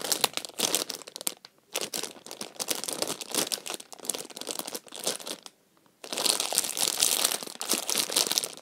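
Clear plastic packaging crinkling in irregular bursts as a jumbo foam croissant squishy is handled and squeezed inside it. The crinkling stops briefly about a second and a half in and again around five and a half seconds.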